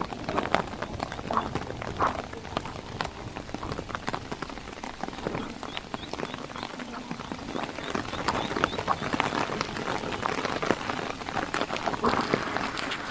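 Heavy rain pattering on a hard surface: a steady hiss thick with close, sharp drop hits, building slightly in the second half.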